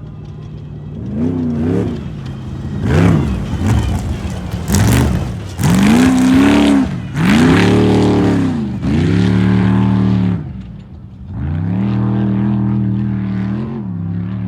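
Off-road racing vehicle engine revving hard, its pitch climbing and falling several times in quick succession, loudest in the middle. There are bursts of rushing noise in the first few seconds.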